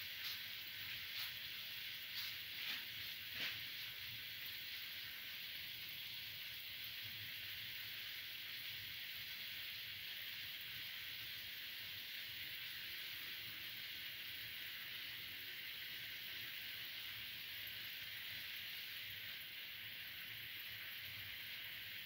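Oil sizzling steadily around chickpea-flour fritters frying in the cups of a cavity pan, with a few sharp pops in the first few seconds.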